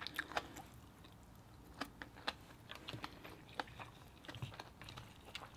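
Quiet close-up chewing: a sparse scatter of soft mouth clicks while eating rice and king crab.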